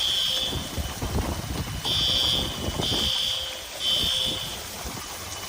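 An electronic alarm beeping: four short high-pitched beeps about half a second each, unevenly spaced, over a steady rumbling background noise.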